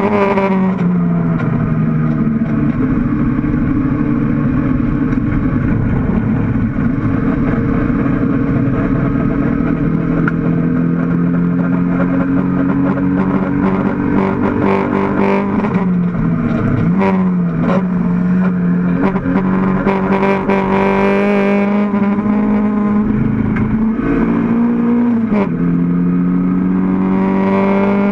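Mid-mounted four-cylinder engine of a Mk1 Toyota MR2 race car under racing load, heard from inside the stripped cabin. Its note drops sharply at the start as the car slows, then climbs slowly on a long straight. The pitch dips briefly twice, about 17 and 25 seconds in, as gears change, with a few clunks around the first change.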